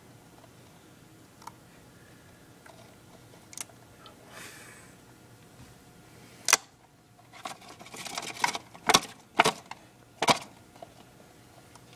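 A paper takeout box being handled inside a plastic bin: a sharp tap about six and a half seconds in, then paper rustling and crackling and several sharp clicks and knocks over the next few seconds.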